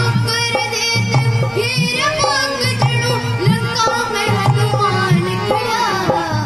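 A boy singing a folk melody with wavering, ornamented pitch into a microphone, amplified through loudspeakers, over a steady drum beat accompaniment.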